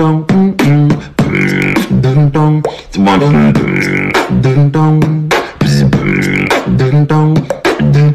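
Hip-hop backing track: a steady beat with a short voice-like hook repeating every second or two.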